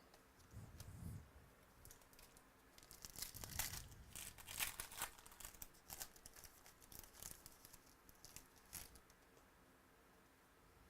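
Faint crinkling and tearing of a trading-card pack wrapper being opened, with quick crisp scrapes as the cards are handled, busiest between about 3 and 9 seconds in.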